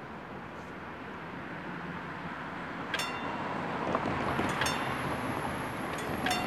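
Car driving over a railway level crossing. About three seconds in, the crossing's warning bell starts, ringing single strikes about every one and a half seconds as the signal turns red.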